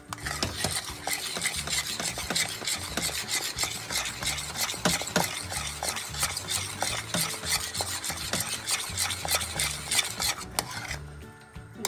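A utensil stirring a thickening homemade cheese mixture in a pot on the stove: a fast, continuous run of scraping strokes against the pot that drops away shortly before the end.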